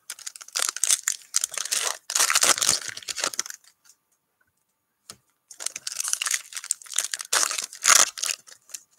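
Shiny wrappers of 2020-21 NBA Hoops trading card packs being torn open and crinkled by hand, in two spells of crackling with a pause of about two seconds in the middle.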